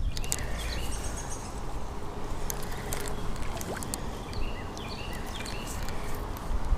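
Steady rush of flowing river water, with birds chirping in short high calls throughout.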